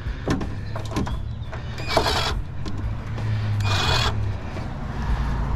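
Metal parts of a PTAC unit being handled during teardown: a few sharp clicks and knocks, then two short scraping rasps about two and four seconds in, over a steady low hum.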